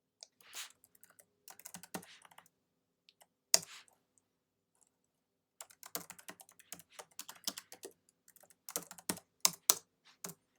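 Computer keyboard typing in uneven bursts of key clicks, pausing for a couple of seconds midway, then a fast run of keystrokes.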